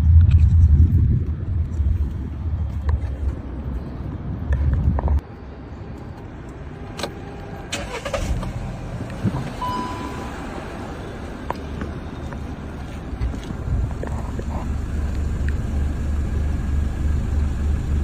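A car engine running, its exhaust heard as a low rumble after the exhaust leak has been sealed. It is loud for about five seconds, drops off suddenly, then rises again near the end, with a few scattered clicks and knocks.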